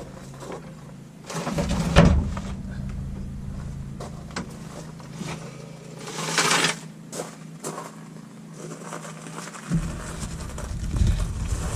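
Work noises as a pickup truck is lowered back down after the rear suspension work: a sharp thump about two seconds in, a short rushing noise around six and a half seconds, and another knock near the end, over a steady low hum.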